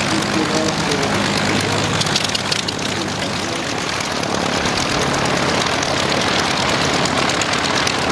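Piston engines of vintage propeller aircraft running close by on the ground, a steady drone with propeller noise, as aircraft taxi and roll for take-off.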